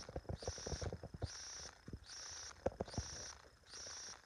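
Insects chirping in regular pulses about once a second, with scattered short knocks and clicks over them.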